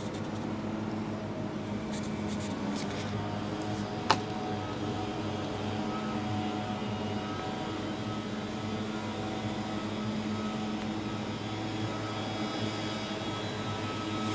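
Steady mechanical hum with a low, even drone, and a single sharp click about four seconds in.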